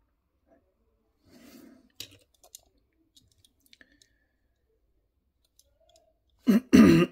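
Faint small clicks and taps of metal tweezers and fingers on a 1:64 diecast model car while a tiny license plate is pressed on. Near the end, a short, loud wordless vocal sound, falling in pitch.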